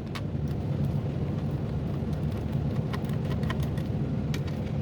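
Scattered light clicks and ticks of small screws and a screwdriver being worked on a laptop's plastic case, over a steady low background hum.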